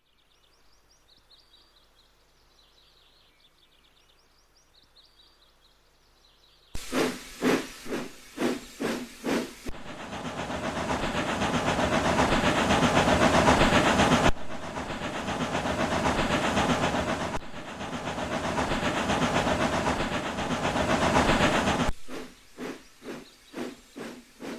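Steam locomotive chuffing: about six seconds in, a sudden run of loud rhythmic chuffs, roughly two a second, gives way to a long continuous steam hiss, and chuffs return near the end. Before it there is only faint high chirping.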